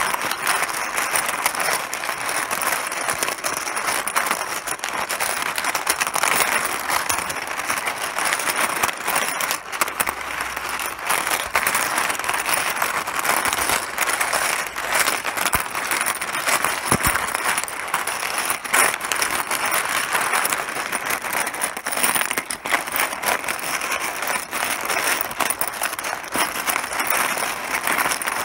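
Mahjong pieces clattering against each other in a dense, unbroken stream of small clicks.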